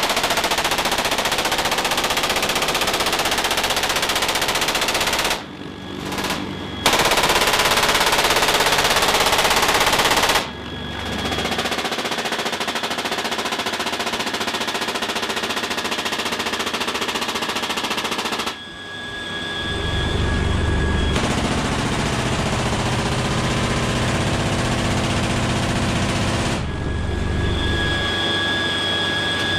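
GAU-21 .50-calibre machine guns firing long, continuous bursts from a CH-53K King Stallion helicopter. Twice, about five seconds in and again near nineteen seconds, the firing stops briefly and the helicopter's engine whine and rotor drone come through.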